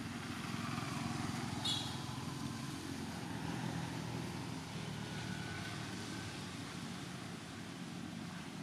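A motor engine running steadily as a low hum. A short high chirp comes about two seconds in.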